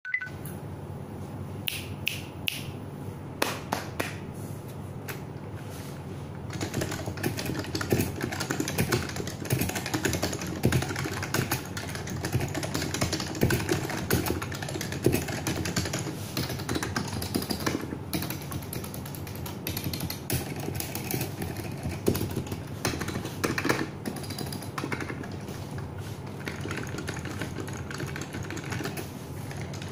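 Typing on a KBParadise V60 Mini mechanical keyboard with stock Matias Quiet Linear switches and stock stabilizers. There are a few separate keystrokes at first, then steady, fast typing from about six seconds in.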